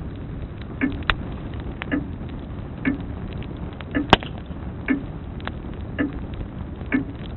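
Grandfather clock ticking about once a second over a crackling log fire, with sharp pops from the fire, the loudest about four seconds in.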